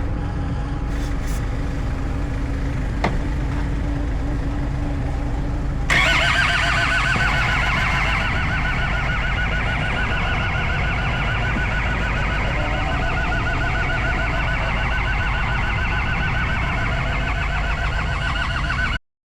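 Land Rover Defender engine being cranked on its starter in deep cold without catching: about six seconds in, a fast, even churning starts suddenly and runs on without the engine firing, over a steady low engine hum. The sound cuts off abruptly near the end.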